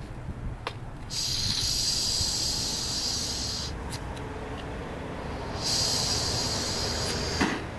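Handheld gas blowtorch on a blue canister hissing in two stretches, about two and a half seconds and then two seconds long, as its flame heats a copper pipe joint for soldering. A sharp click near the end.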